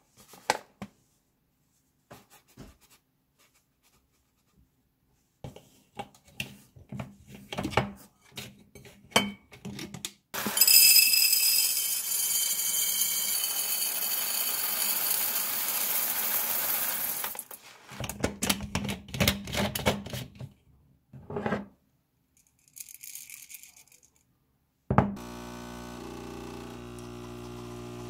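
Roasted coffee beans poured from a paper bag into a glass canister, a dense rattle of beans on glass lasting about seven seconds, with the paper bag crinkling and handled before and after. Near the end an espresso machine starts pulling a shot with a steady hum.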